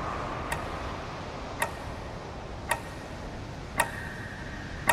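Clock ticking, five evenly spaced ticks about once a second, over a faint steady hiss and a faint held tone.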